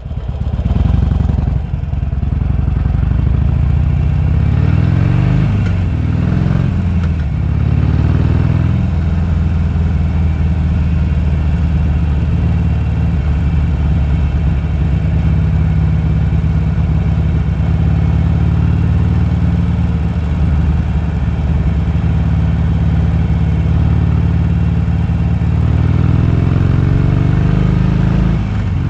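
Harley-Davidson Sportster's air-cooled V-twin engine running loud and close. It revs up and down through gear changes about four to eight seconds in and again near the end, with a steady drone in between.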